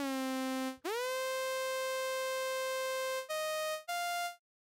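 Ammo 100LA software oscillator in Reason played from a keyboard through a Charlotte envelope generator, giving a bright, buzzy synth tone. A held low note gives way to a note that glides up an octave and holds for about two seconds, then two short, higher notes start and stop cleanly under the envelope.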